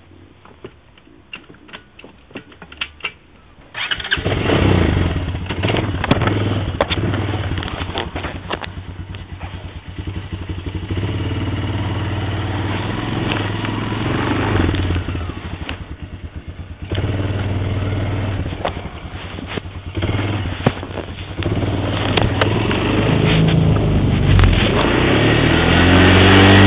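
Honda TRX250 Recon ATV's single-cylinder four-stroke engine starting about four seconds in, then running under way with its pitch rising and falling as the rider works the throttle. Before it starts there are scattered clicks and knocks.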